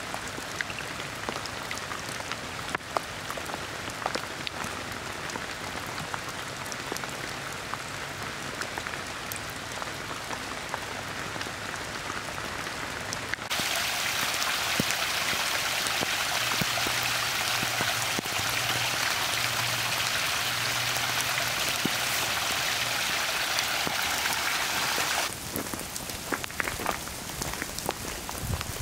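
Rain falling in a forest, a steady patter with individual drops ticking sharply. From about 13 seconds in until about 25 seconds in it turns into a louder, more even hiss of water, then drops back to a sparser patter of drips.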